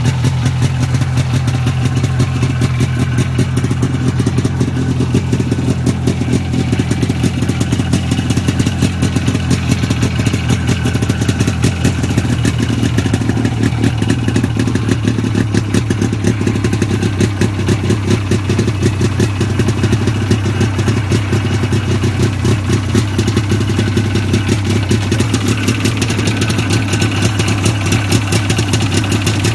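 Snowmobile engine running steadily at an even speed with a fast, regular pulsing beat.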